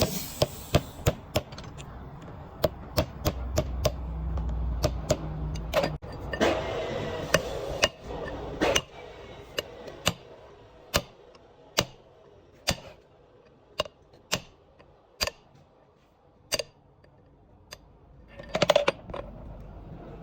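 Repeated sharp hammer taps on metal during work on a differential's pinion seal. They come close together and irregularly at first, then settle to about one tap a second, with a louder double knock near the end.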